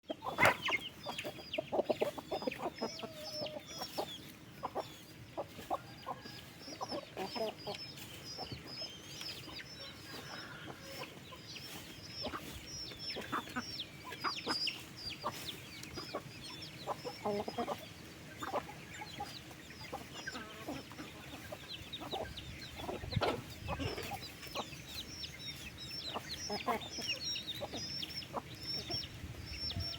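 A flock of chickens clucking and calling, with many short high-pitched chirps throughout.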